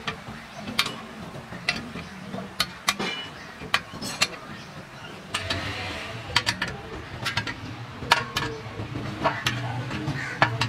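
Sharp, irregular clicks and clinks of steel parts and hand tools being handled on a reaper's cutter bar, roughly one or two a second, over a low steady hum that grows louder in the second half.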